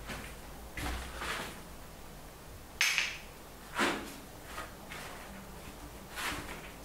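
A few short scuffs and swishes of someone working at a wall with paint and a rag. The loudest and sharpest comes about three seconds in, with another just before four seconds and smaller ones about a second in and near the end.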